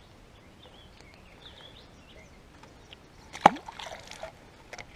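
A small bass tossed back into the water, landing with a single sharp splash about three and a half seconds in, followed by a little sloshing and rattle.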